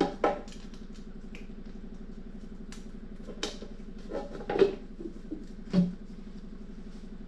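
A few knocks and clanks as the painted metal switch-box lid of a Hummel floor sander is handled and set back onto the box, the loudest about four and a half and six seconds in, over a steady low hum.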